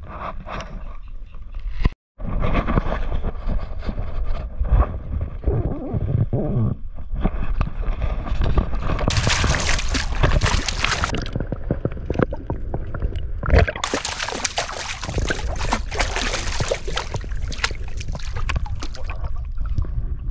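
Water sloshing and splashing, with louder, hissier splashing about nine seconds in and again from about fourteen seconds. The sound drops out completely for a moment about two seconds in.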